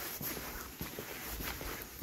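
Footsteps on a hard surface, with irregular short ticks and knocks over a steady background hiss.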